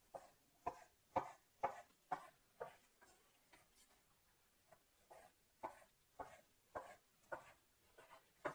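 Chef's knife cutting raw cod fillet into cubes, the blade tapping the bamboo cutting board about twice a second. There is a lull of about two seconds in the middle of the cutting.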